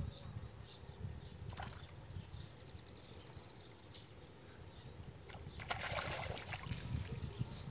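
A short splash and rustle about six seconds in, as a hooked tilapia is lifted out of the pond on a short bamboo pole, over wind rumbling on the microphone.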